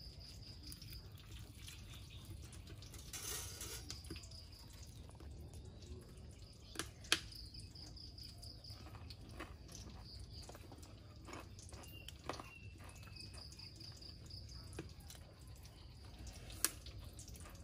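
Insects trilling in repeated high-pitched bursts about a second long, over a low steady rumble, with a few sharp clicks scattered through.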